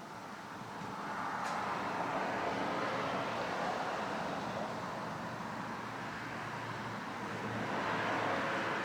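Road traffic noise, the rushing of passing vehicles, swelling about a second in and again near the end.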